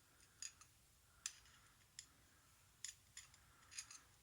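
Faint, sharp little metallic clicks, about seven of them at irregular intervals: small parts of a vintage 60mm Yale padlock being handled and picked at while it is taken apart.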